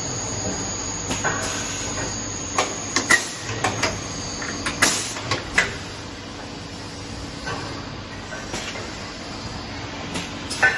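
Victor V105 CNC machining center running after its spindle overhaul: a steady hum with a thin high whine that stops about three seconds in, and a string of sharp metallic clicks and clunks through the middle and again near the end.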